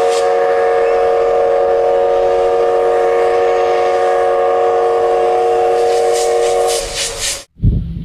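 A steam locomotive's whistle blowing one long steady blast over the hiss of steam, fading out about seven seconds in.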